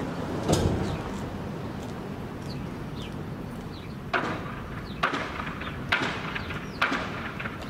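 Footsteps of a person walking on gritty pavement, one step a little under every second, from about four seconds in, with a single thump about half a second in. Faint bird chirps sound in the background.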